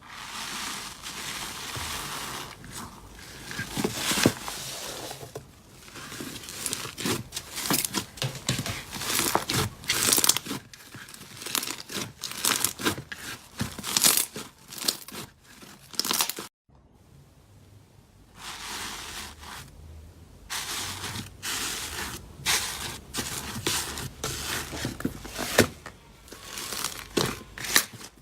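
Slime being squeezed and pressed by hand, making dense crackling and crinkling sounds with sharp pops. It cuts out briefly about two-thirds of the way through, then starts again.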